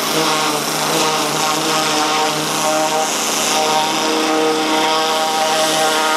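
Hot-water pressure washer driven by a 14 HP Kohler gasoline engine, running steadily while its high-pressure jet blasts against a steel excavator boom. Background music with a stepping melody plays underneath.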